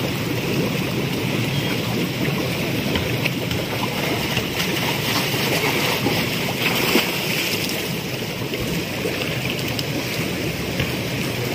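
Steady rush of churning pool water from bubbler jets in a shallow wading pool.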